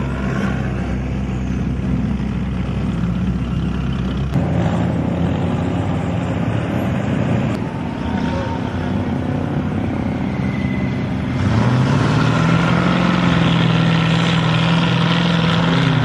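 Off-road 4x4 vehicle engines running while driving in a convoy. The sound changes abruptly three times, and about eleven seconds in a louder engine note rises, then holds steady.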